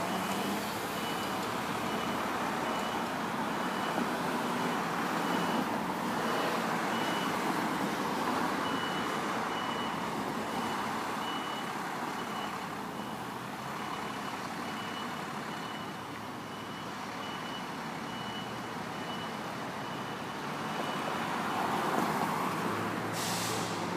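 Fire pumper's reversing alarm beeping in a steady high-pitched pattern as the truck backs into its station bay, over engine and street-traffic noise. A car passes close by near the end.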